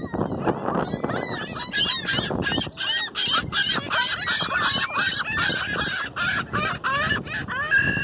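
A flock of ring-billed gulls calling over one another: many short squawks that rise and fall in pitch, overlapping densely. Near the end one gull gives a longer, held call.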